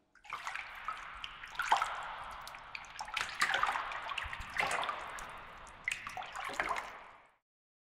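Water trickling and dripping, with a handful of sharper, louder drips at irregular intervals; it dies away shortly before the end.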